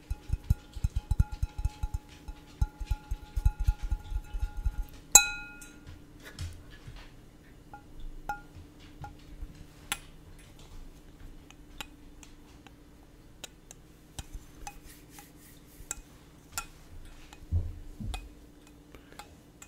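Fingertips tapping quickly on a glass close to the microphone, the glass ringing with a steady tone under the taps. About five seconds in, one sharp strike makes it ring out loudly. Scattered light taps and clinks follow, with a couple of soft thumps near the end.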